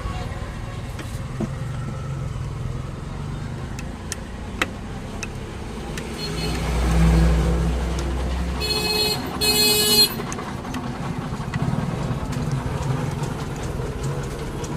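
Street traffic rumbling, with a vehicle passing about halfway through and a vehicle horn sounding twice in quick succession just after. A few faint clicks come from a screwdriver working at the nuts.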